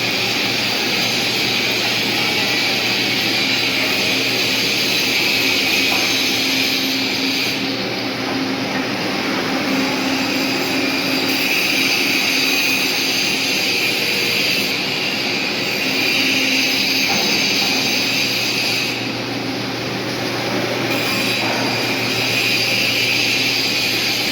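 Electric arc welding crackling and hissing steadily in the training booths over a low machine hum; the arc noise drops out briefly twice, about a third of the way in and again past the middle.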